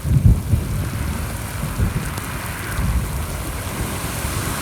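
Heavy rain pouring down, with a loud, uneven low rumble underneath that is strongest in the first second.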